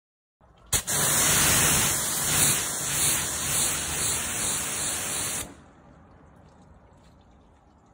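A jet of water sprayed onto a car windscreen that has a protective coating, a loud steady hiss of spray on glass. It starts just under a second in and stops suddenly about five and a half seconds in.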